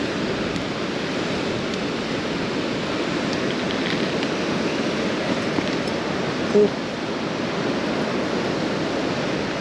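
Steady rush of flowing river water, with one brief short sound about two-thirds of the way through.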